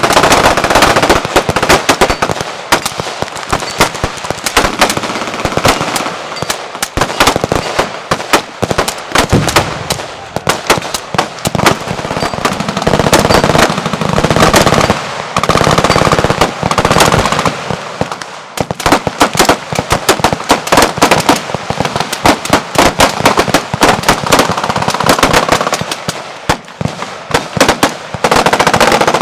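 Fully automatic gunfire: long strings of rapid shots with only brief breaks.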